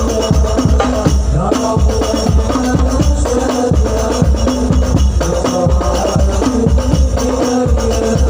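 Instrumental passage of a group's Arabic song: hand drums keep a steady beat under jingling tambourine, with a melody line held over them.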